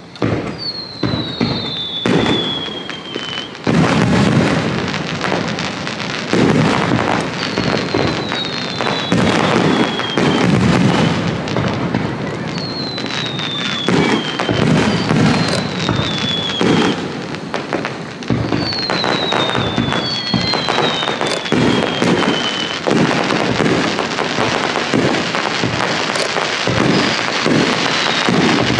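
Aerial firework shells bursting in a steady run of booms and crackles, getting louder a few seconds in.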